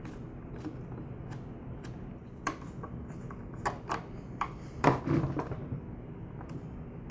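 Scattered small clicks and ticks of screws being set into a plastic air filter base and driven with a hand screwdriver, with a louder run of clicks and scraping about five seconds in.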